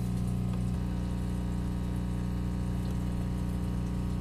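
Steady low mechanical hum made of several even low tones, holding at one level throughout.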